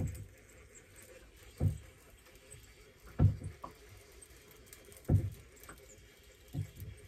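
Water slapping against the hull of a small boat, a low thud about every one and a half to two seconds. Under it is a faint ticking from a fishing reel being wound in.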